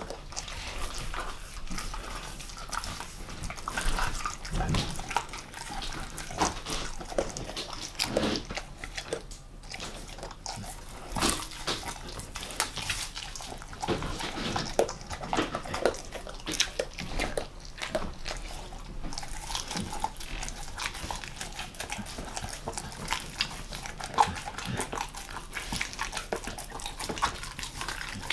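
A German Shepherd mix chewing, licking and gnawing at a piece of raw monkfish, making irregular wet smacks and clicks of its mouth and teeth.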